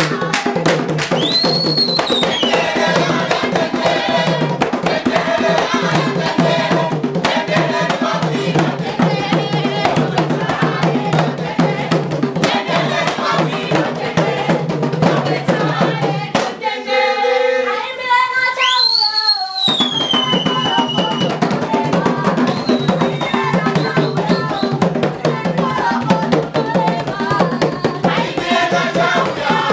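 Malawian atchauya traditional music: a group singing over fast hand-played skin drums and clapping, with a few high, sliding shrill calls. About two-thirds of the way through the drums stop for a few seconds, leaving a single voice and a shrill call, then come back in.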